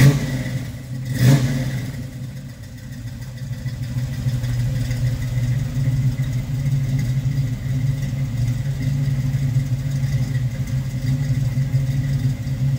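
1967 Chevrolet Chevelle SS's V8 engine running: two short louder bursts of revving about a second apart near the start, then a steady idle.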